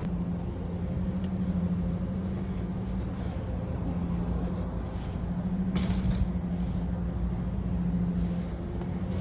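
Steady vehicle drone, as heard inside a car on the move, with a constant low hum throughout. A brief click about six seconds in.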